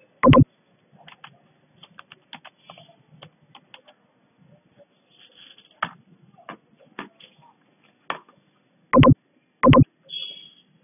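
Typing on a computer keyboard: irregular key clicks, with three much louder strokes, one just after the start and two close together near the end.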